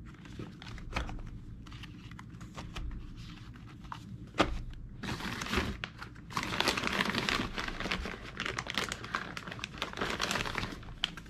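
Small cardboard ammunition boxes being set into a steel ammo can with light knocks and one sharp tap about four seconds in, then several seconds of plastic bag crinkling as more boxes are pulled from the bag-lined shipping carton.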